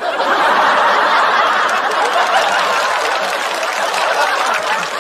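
Studio audience laughing loudly, breaking out all at once and holding steady, in response to a stand-up punchline.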